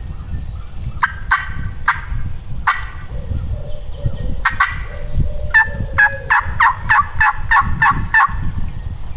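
Turkey yelps: a few separate notes, then a quick, evenly spaced run of about ten yelps, three to four a second, through the second half. A steady low rumble lies underneath.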